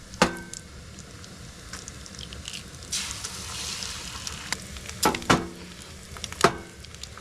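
Eggs being cracked on a pan and frying. Sharp ringing knocks come near the start and twice around five seconds, then once more near the end, and a sizzle swells about three seconds in.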